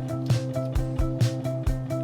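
Background music with a steady beat, about two beats a second, over sustained melodic notes.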